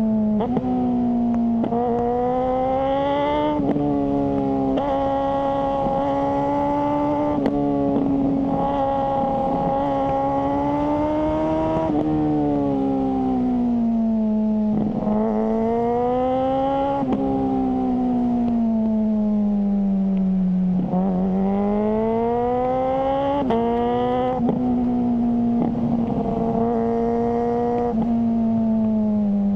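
Suzuki GSR600 inline-four engine through a GPR Ghost aftermarket exhaust, ridden at steady revs. The pitch climbs and eases off over several seconds at a time and drops sharply for a moment at each of a dozen or so gear changes.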